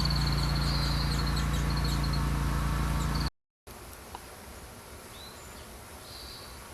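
Outdoor ambience: a steady low hum with a rapid high chirping trill of calls, broken off by a brief total dropout about three seconds in where the recording cuts. After the cut it is much quieter, with a few faint high calls.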